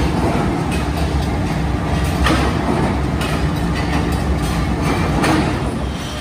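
Factory machinery running with a steady low rumble and hum, broken by a few sharp clanks at irregular intervals.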